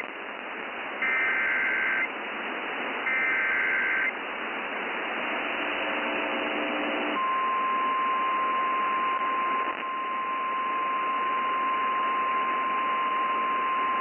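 NOAA Weather Radio received over constant static hiss. Two short bursts of the EAS SAME header's warbling data tones sound, then about seven seconds in the steady 1050 Hz weather radio alert tone starts and holds, announcing a warning.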